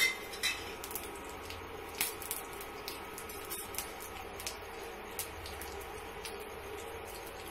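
Whole spices (bay leaves, cloves and cinnamon) frying in hot mustard oil in a kadai, giving scattered small pops and crackles at irregular moments over a steady hum from the induction cooktop.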